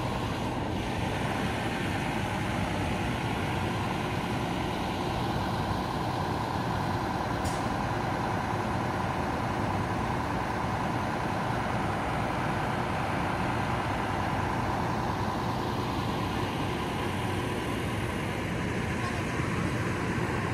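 Engine of a parked double-decker bus idling steadily close by, a constant drone with a faint steady whine over it.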